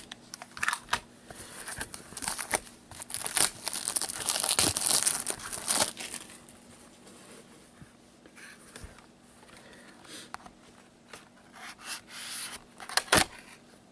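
Packaging of a trading-card box being torn open and crinkled, busiest in the first six seconds, then quieter handling with a few clicks and one sharp tap near the end.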